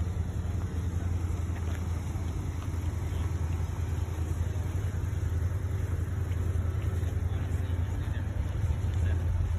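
Steady low rumble of slow road traffic, a queue of cars idling and creeping along.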